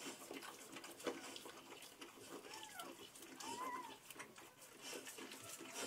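Newborn Saint Bernard puppies giving thin, mewing squeaks, two short rising-and-falling cries in the middle, while the mother licks them with soft wet licking clicks.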